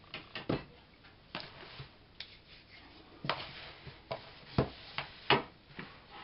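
About six sharp, separate knocks and clicks, a second or so apart and loudest near the end: things being handled and set down on a kitchen table.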